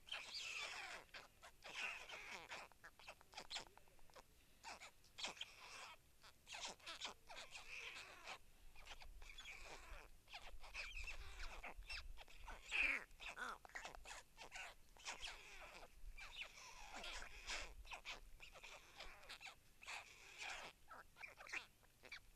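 White stork chicks giving faint, repeated mewing begging calls, with short chirps throughout.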